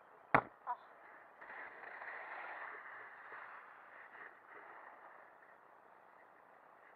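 A sharp knock about a third of a second in, followed by a steady hiss of skis sliding over packed snow, swelling a few seconds in and then easing.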